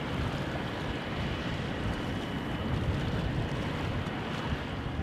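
Steady wind and water noise on open water, with a low, uneven rumble underneath.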